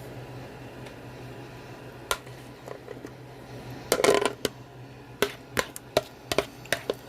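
A kitchen utensil knocking and scraping against a mixing bowl as pound cake batter is scraped out into a cake pan. There is one sharp tap about two seconds in, a brief clatter about four seconds in, then a run of quick sharp taps, over a steady low hum.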